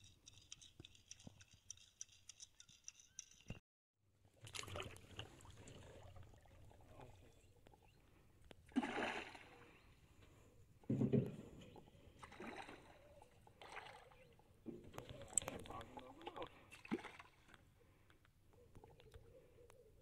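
Scattered splashes and sloshing water around an aluminium fishing boat while casting for peacock bass: a lure landing and a fish breaking the surface, the loudest splashes about nine and eleven seconds in. A steady high-pitched whine with light ticks in the first few seconds cuts off abruptly about four seconds in.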